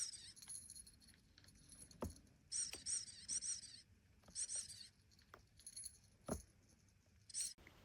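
A small metal bell jingling in several short shakes, with a couple of soft knocks between them.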